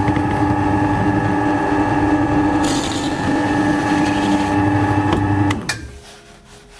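Drill press (Scheppach DP Vario 18) running with a steady motor hum while a Forstner bit bores into the wooden drill table. There is a rasping hiss of cutting for about two seconds in the middle. The motor stops about five and a half seconds in and fades out.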